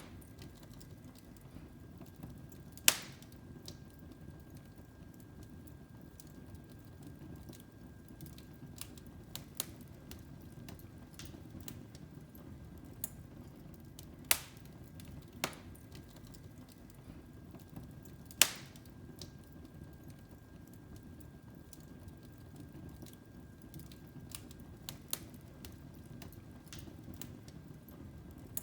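Wood fire crackling: a low steady rush of flames with sharp pops at irregular intervals, a few loud ones scattered among many fainter ticks.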